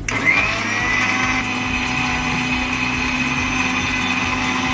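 Electric mixer grinder switched on: its motor starts suddenly, spins up with a short rising whine, then runs at a steady whine.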